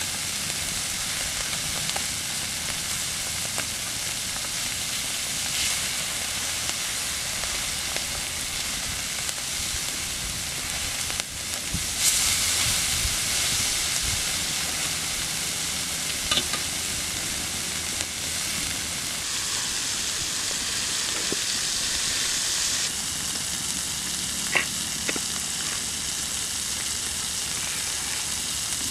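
Conger eel and ribbon fish sizzling in oil on a flat iron griddle over a wood fire: a steady frying hiss that gets louder about twelve seconds in, with a few light clicks.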